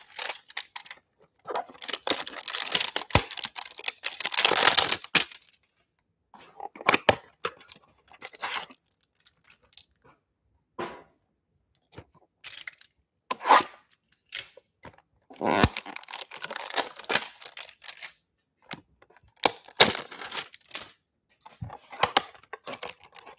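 Clear plastic wrapping being torn and crinkled off a cardboard trading-card hanger box, then the box handled and opened. The tearing and crinkling come in irregular bursts with short pauses between them.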